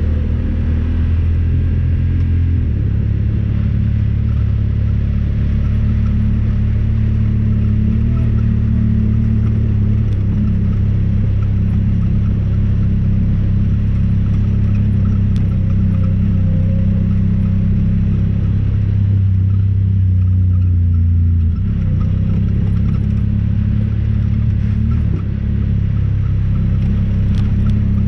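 Honda Talon 1000R side-by-side's parallel-twin engine running as it drives, a steady low drone whose pitch steps up about three seconds in and drops again about twenty-one seconds in.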